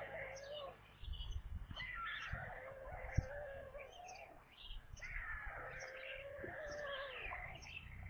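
Young white storks making wavering, cat-like mewing begging calls, over and over. Short high chirps repeat above them, and there is a sharp knock about three seconds in.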